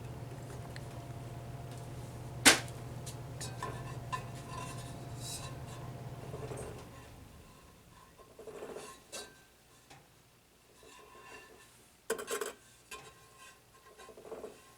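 Sony PS-LX220 turntable running with a steady low hum, with one sharp click about two and a half seconds in. The hum stops about seven seconds in, and scattered light clinks and taps of small parts being handled follow.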